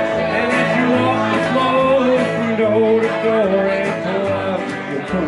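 Live country band playing: electric guitar, upright double bass and acoustic guitar, with a man singing.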